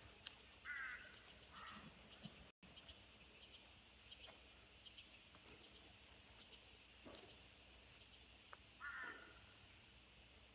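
Crows cawing: a few short harsh calls, about a second in and again near the end, over faint high chirps of small birds repeating at a steady rhythm.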